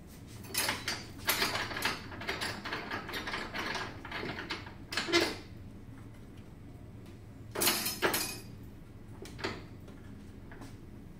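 Rattling and clicking from the metal stand and fittings of a medical resuscitator unit as it is handled: a dense run of small clicks and clatters for about five seconds, then two louder knocks, then a few isolated clicks.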